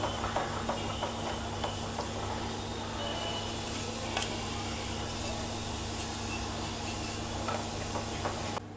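Silicone spatula stirring thick gram-flour and ghee batter in a nonstick pan as it is poured into sugar syrup, with soft scraping and small clicks, one sharper tap about four seconds in, over a steady low hum.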